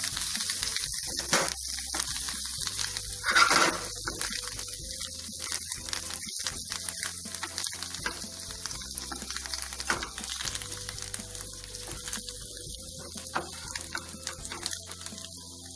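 Boiled baby potatoes with cumin and sesame seeds sizzling gently in a non-stick pan on low flame, with a spatula scraping and turning them in repeated strokes.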